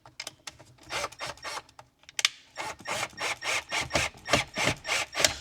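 Rhythmic scraping strokes: a few scattered ones at first, then from about two and a half seconds in a steady run of about two to three strokes a second.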